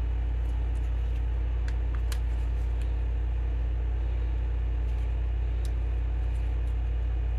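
A steady low hum with a few faint, scattered clicks from a thin pry tool working around the edge of a Samsung Galaxy A13 5G's plastic back cover.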